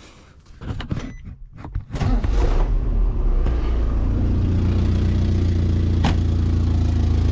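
KA24E four-cylinder engine in a Datsun 620 starting up about two seconds in and settling into a steady idle, after a few light knocks. The exhaust is leaking at a broken flexible exhaust coupler. A single sharp click sounds over the idle near the end.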